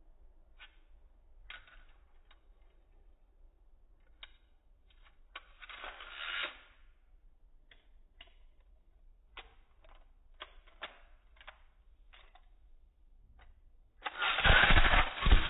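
Beyblade spinning top on a plastic stadium: scattered light clicks and scrapes, a short rattle about six seconds in, and a loud clatter near the end.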